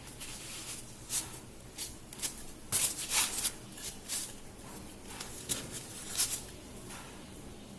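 Hands handling objects: irregular rustling and scraping noises, several louder scrapes in the middle, with no machine running.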